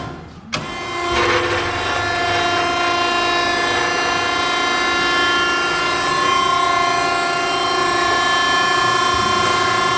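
Nichols vertical cardboard baler's hydraulic power unit starting about half a second in and then running with a steady, whining hum from its three-phase electric motor and pump as the press ram travels up.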